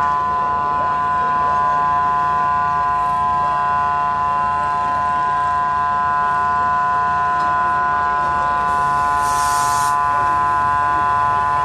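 A steady mechanical whine made of several fixed high tones over a low rumble, with a short burst of hiss about nine seconds in.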